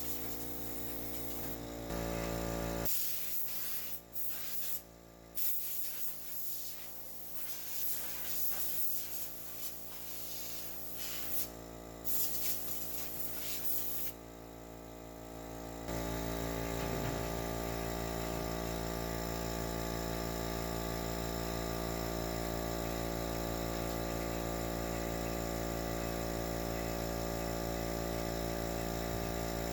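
Compressed air blown in hissing bursts, starting and stopping, to clear dust out of a greenhouse furnace's control section and motors. From about halfway through, a steady machine hum takes over.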